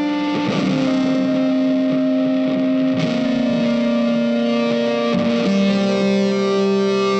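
Background music led by a guitar, playing long held notes that change every two to three seconds.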